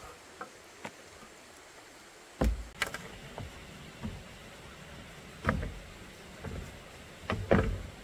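Plastic traction boards knocking against a metal roof-rack mount as they are set in place: a couple of light clicks in the first second, then several sharp clunks, the loudest about two and a half seconds in and near the end.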